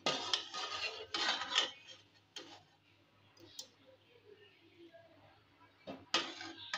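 A metal ladle scraping and clicking against a steel pan of hot oil as frying puris are pushed and turned: a run of scrapes in the first second and a half, a short one about two and a half seconds in, and another near the end.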